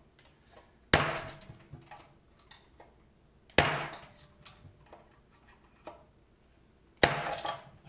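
A hammer striking a flathead screwdriver three times, a few seconds apart, each blow a sharp knock that rings briefly. The screwdriver tip is being driven against the lock ring on a Honda-clone engine's governor shaft to work the ring loose.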